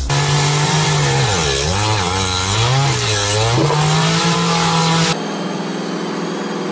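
Two-stroke engine of a two-man gas earth auger running at high revs, its pitch dipping twice under load and recovering. About five seconds in it gives way suddenly to a quieter, steady hum.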